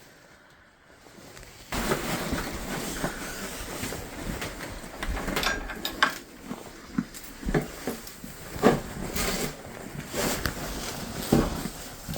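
Goats moving about in a straw-bedded barn pen: a steady rustle of bedding with irregular hoof knocks and thumps, starting suddenly about two seconds in.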